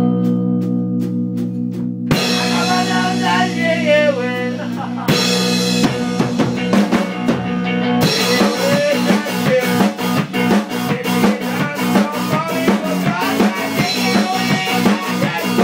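A live band playing: a drum kit keeps a steady beat under guitar and a wavering melody line.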